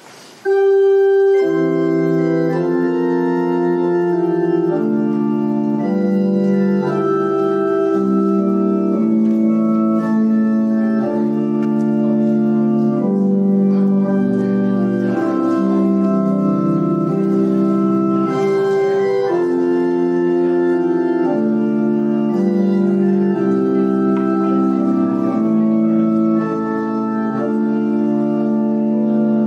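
Organ playing a postlude after the benediction: sustained chords held and changing every second or two, starting about half a second in.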